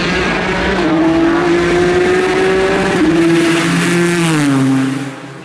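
Ford GT LM GTE race car's twin-turbo 3.5-litre EcoBoost V6 at full throttle, its pitch climbing, with a sudden drop about three seconds in at a gear change. It then climbs again and falls in pitch as the car passes close by, and the sound fades quickly near the end.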